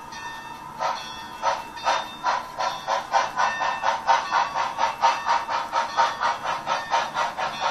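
Chuffing from the sound decoder of a Bachmann Sound Value DCC HO-scale Santa Fe 2-8-0 steam locomotive, played through its small onboard speaker. The chuffs start about a second in and quicken from under two to about three a second as the locomotive picks up speed.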